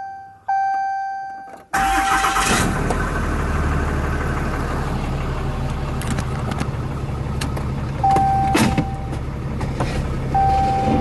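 Pickup truck's warning chime dinging, then the engine cranks and starts about two seconds in and settles into a steady idle, heard from inside the cab. The chime dings again twice near the end.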